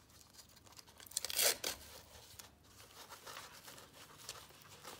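Velcro on a skydiving harness mud flap rasping briefly about a second in as the tab is worked into place, with light rustles and clicks of hands handling the harness webbing and hook knife sheath.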